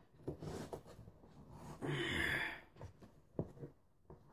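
Hands wrestling with a cardboard package: scattered knocks and handling noise, the sharpest about three and a half seconds in, with a strained, breathy exhale about two seconds in as the box proves hard to open.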